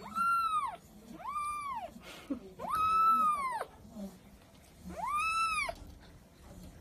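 A calico kitten meowing four times, each a high call that rises and then falls in pitch; the third meow is the longest and loudest.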